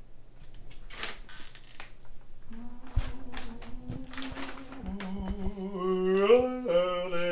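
A man humming a wordless tune that swells and bends in pitch, growing louder toward the end, after a few short bursts of hiss near the start.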